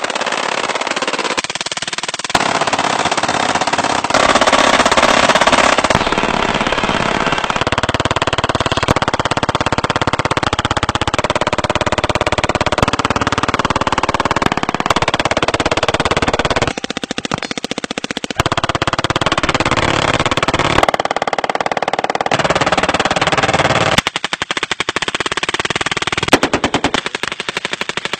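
Rapid automatic gunfire from a succession of different guns, handguns with extended magazines and AR-style rifles, fired in long strings of shots. The sound changes abruptly several times as one gun gives way to the next, and near the end the shots come as separate quick pops.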